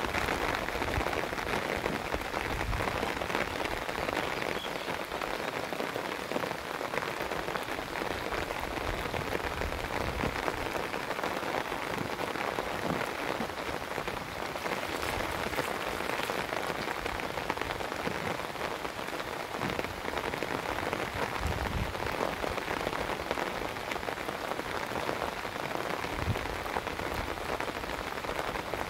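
Steady rain falling on open water, an even hiss with no break.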